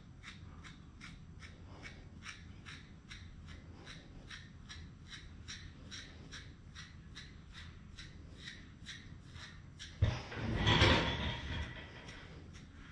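Hand stripping a West Highland White Terrier puppy's coat: short plucking pulls of hair in a steady rhythm of about three a second. A louder rustle lasting about a second and a half comes near the end.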